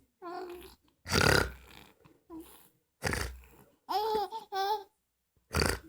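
Loud, rough snoring snorts, three in a row about two seconds apart. Between them a baby gives short, high-pitched squeals and laughs.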